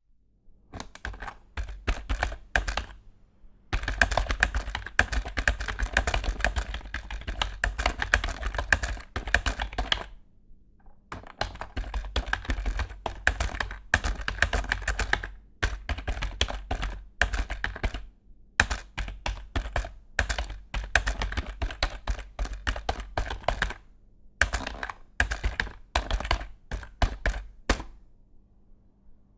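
Fast typing on an inexpensive Microsoft membrane-style computer keyboard: dense runs of key clicks in bursts of several seconds, broken by short pauses.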